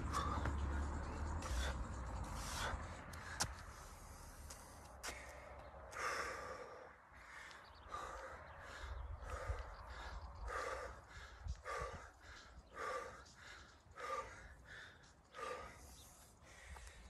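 A man breathing hard through bodyweight squats, with a short forceful exhale about once a second for most of the second half, the sound of a man working hard partway through a long conditioning circuit. A low rumble and a few clicks come in the first couple of seconds.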